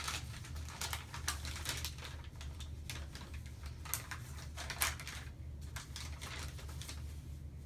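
Paper and plastic wrappers of sterile dressing-change supplies being handled and unfolded by hand: a run of irregular small crinkles and clicks, over a steady low hum.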